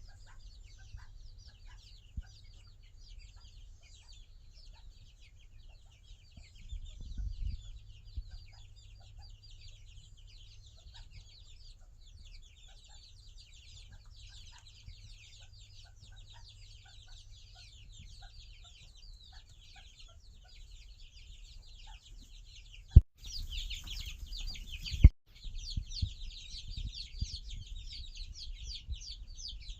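A flock of chickens clucking, with a dense chatter of many short high calls. Two sharp clicks come about 23 and 25 seconds in, and after them the calls are louder.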